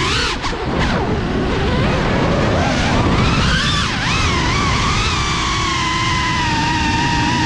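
Geprc Cinelog35 FPV quadcopter's brushless motors and ducted propellers whining in flight. The pitch jumps up sharply near the start, swoops up and down with throttle changes through the middle, then settles back to a steady whine.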